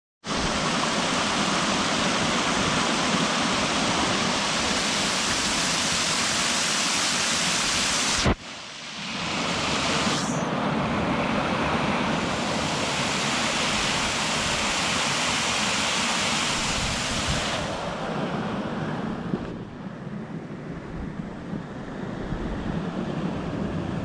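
Waterfall pouring over rock ledges: a steady, full rush of falling and splashing water. It dips briefly about eight seconds in and turns duller and a little softer in the last few seconds.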